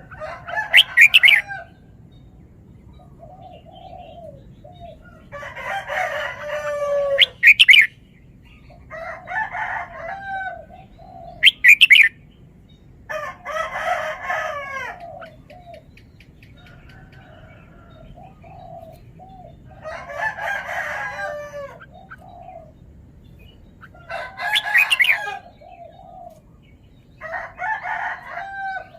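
Red-whiskered bulbul singing short warbled phrases, repeated every three to four seconds, several of them ending in loud, sharp, high notes.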